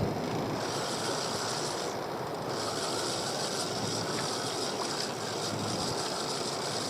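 Fishing reel being wound as a hooked sea bass is brought in, a high whirr that starts, stops briefly about two seconds in, and resumes, over steady wind and water noise.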